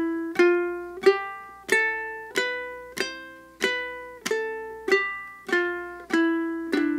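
Ukulele in high-G tuning played clawhammer style: single notes struck down with the back of the fingernail, walking up a C major scale from the open C string. The notes come at an even pace of about three every two seconds, each ringing and fading before the next.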